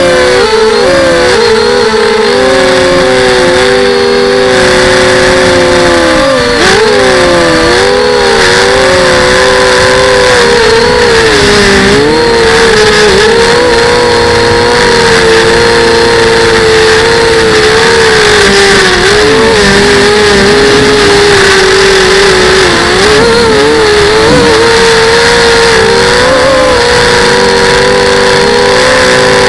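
FPV quadcopter motors whining continuously, several close pitches blending, with short dips in pitch every few seconds as the throttle eases and picks back up.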